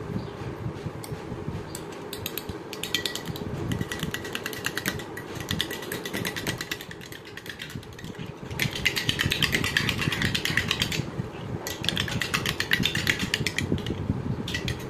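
Metal spoon beating a raw egg in a small glass bowl: rapid clinking strokes against the glass in bursts of one to three seconds, with short pauses between them. A steady low hum runs underneath.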